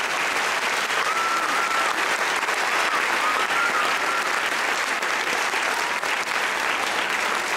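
Audience applauding steadily at the end of a school choir song.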